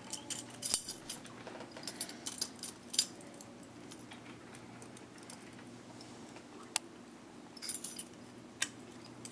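Steel handcuffs being shimmed open: scattered small metallic clicks and rattles of the cuffs and chain, busy at first, quieter through the middle, with another cluster of clicks near the end.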